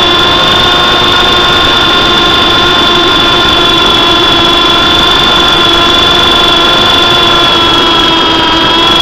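Electric motor of an MJX F645 RC helicopter in flight, heard close up: a loud, steady high-pitched whine with lower steady tones beneath it, the pitch sagging slightly about eight seconds in.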